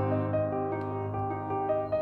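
Gentle background music led by piano, a slow melody of single notes over held low notes.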